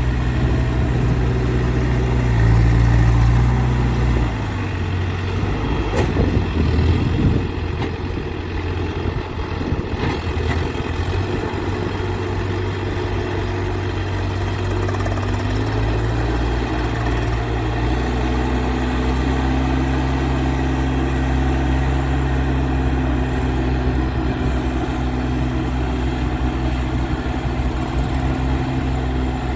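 Case 851EX backhoe loader's diesel engine running. Its speed drops about four seconds in, with a few knocks soon after, then picks up again past the middle and holds steady.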